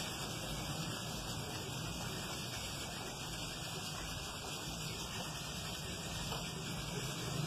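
Steady faint background noise with a low hum and no distinct event: room tone.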